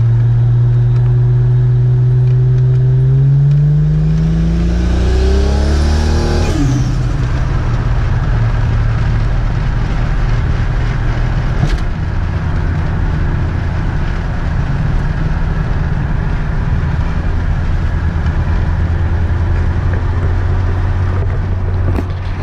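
Turbocharged Toyota 1JZ straight-six, heard from inside the Cressida's cabin. The revs climb for a few seconds, fall abruptly about six and a half seconds in, then the car cruises at steady revs. It stays on light throttle, in vacuum rather than boost.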